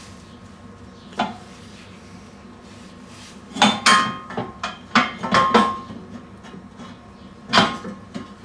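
Steel parts clanking and knocking together with short metallic ringing as the broken steel piece is set in place for tack welding. There is a single knock about a second in, a cluster of sharper clanks in the middle, and one more near the end.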